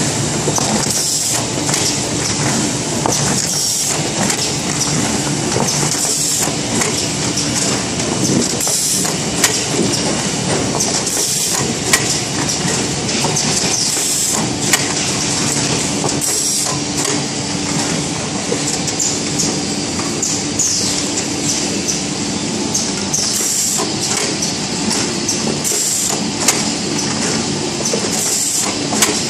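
Automatic hardcover case-making machine running at production speed: a continuous clattering machine noise with a low hum, and regular short hissing bursts about every second and a half as each case cycles through, with scattered clicks.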